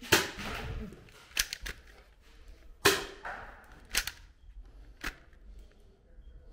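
A handful of sharp clacks and snaps at irregular intervals, about six in all. The first, at the very start, and one about three seconds in are the loudest.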